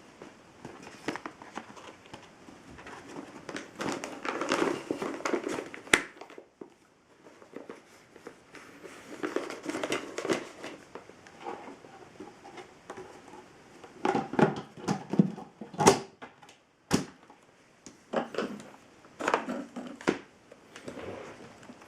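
Irregular crinkling and rustling of something being handled, with a few sharp knocks and clicks, the loudest about six seconds in and around 16 to 17 seconds in; no motor is running.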